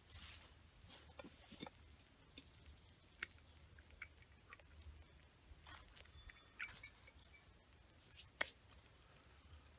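Faint, scattered light clicks and rustles of a metal billy can and its lid being handled on dry leaf litter; the sharpest click is near the end.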